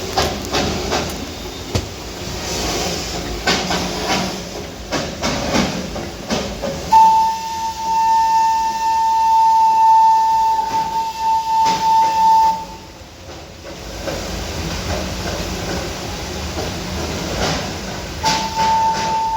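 Darjeeling Himalayan Railway toy train running with clatter and hiss. Its whistle gives one long steady blast of about five seconds, then starts again near the end.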